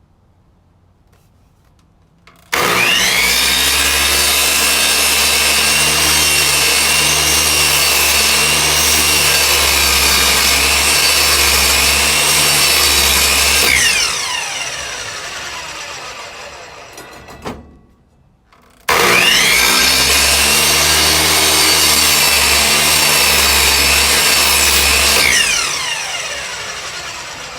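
Electric miter saw cutting wood, started twice: the motor whines up to speed, runs steadily through the cut for about eleven seconds, then winds down after the trigger is let go. After a click, a second, shorter run of about six seconds that also winds down.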